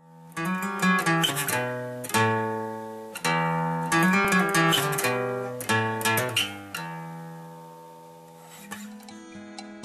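Acoustic guitar music: a run of strummed chords, the last one left ringing and fading out about seven seconds in, then lighter picked notes starting near the end.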